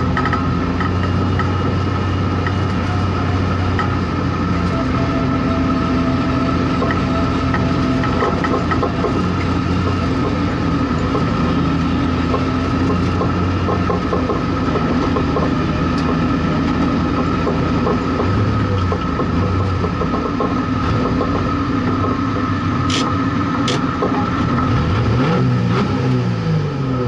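Street stock race car's engine running at low revs as the car rolls slowly, heard from inside the caged cabin, with a steady high whine above the engine note. Near the end the revs fall away.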